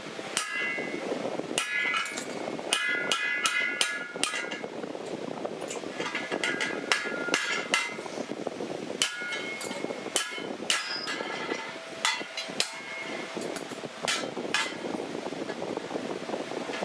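Sharp metal-on-metal knocks and clinks in irregular clusters, several of them ringing briefly like struck steel, over a steady rushing noise.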